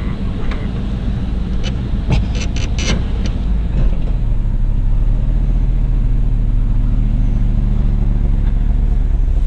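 1988 Chevrolet Suburban's engine idling steadily with a low rumble. A quick run of sharp clicks comes about two to three seconds in.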